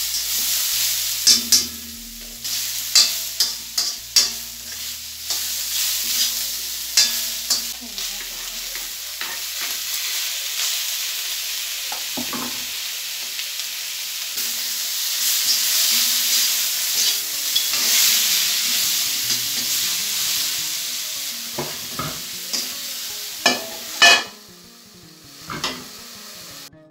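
Goat meat and onions sizzling as they fry in a large metal wok, stirred with a metal spoon that scrapes and knocks against the pan many times. Near the end a metal lid goes on and the sizzle drops away.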